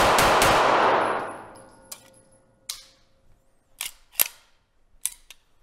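CZ TS 2 Racing Green pistol fired rapidly, about five shots a second, the shots echoing in an indoor range and dying away about a second in. A few sharp clicks follow as the pistol is handled.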